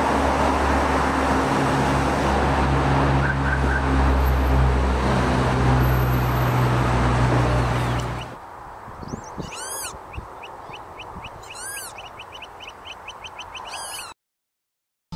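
Steady street traffic noise with a low engine hum, which gives way about eight seconds in to quieter open-air ambience with small birds singing: quick runs of short chirps and a few high looping calls.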